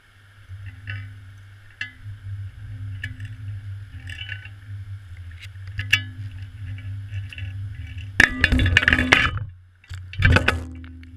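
Guitar music over a steady low rumble, with scattered ticks. Near the end come two loud rattling bursts, the first lasting about a second and the second shorter.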